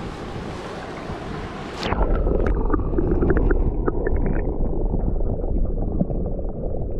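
Rushing river water hissing evenly. About two seconds in, the sound turns abruptly into a louder, muffled low rumble with scattered small clicks.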